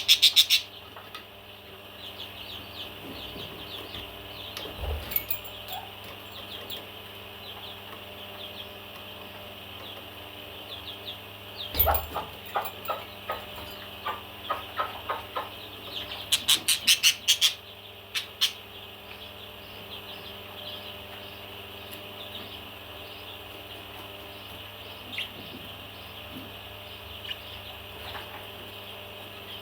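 Parrots chattering: continuous high chirping, broken by loud bursts of rapid calls at the very start and about sixteen seconds in, with a run of lower, spaced calls from about twelve seconds. A steady low hum sits underneath.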